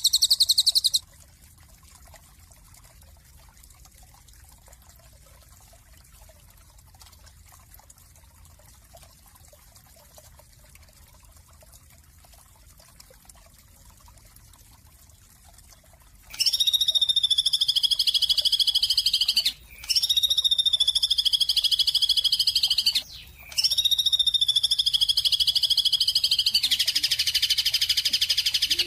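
High-pitched rapid bird trills. One trill cuts off about a second in and is followed by a long quiet stretch of faint hiss. Then come three long trills of about three seconds each, each dropping slightly in pitch and separated by brief breaks, and a denser, buzzier trill near the end.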